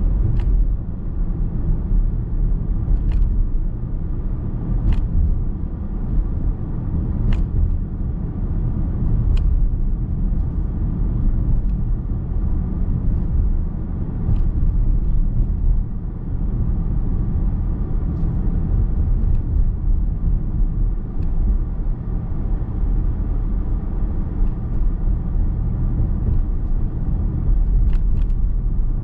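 Road noise inside a moving car's cabin: a steady low rumble of tyres and drivetrain, with a few faint clicks here and there.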